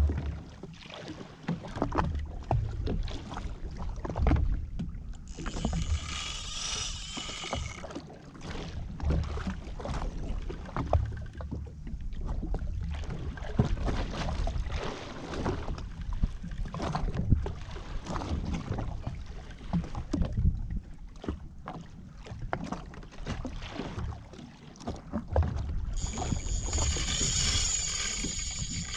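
Water slapping and lapping against a drifting jetski's hull, with wind on the microphone, while a fish pulls on a bent rod. Twice the big spinning reel whirs for a couple of seconds, about six seconds in and again near the end.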